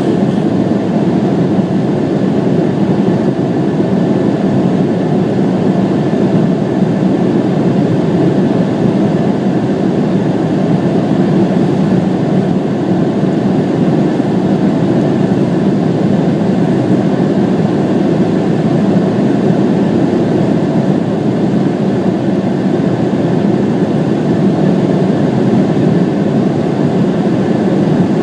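Steady roar of an Embraer 170 in flight, its two GE CF34-8E turbofans and the airflow heard from inside the cabin. The sound stays loud and even, with no change in pitch.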